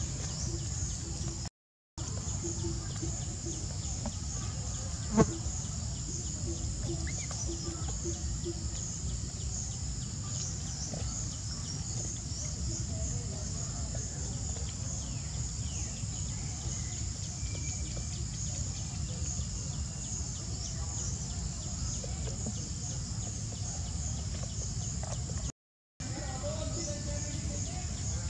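Outdoor ambience of insects droning steadily and high-pitched, over a low rumble. There is a single sharp click about five seconds in, and the sound cuts out briefly twice.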